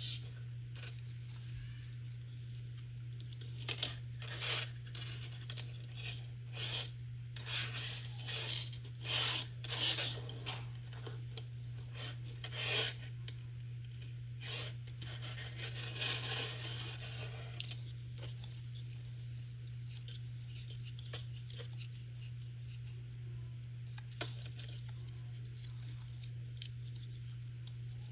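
Cardboard rubbing and scraping in a series of short strokes, then one longer scrape, followed by a few faint ticks, over a steady low hum.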